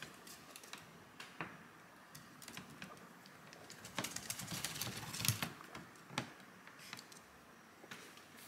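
Light, irregular clicks and rustling as a Pomeranian puppy is petted and moves about on a wooden floor close to the microphone, a little busier about four to five seconds in.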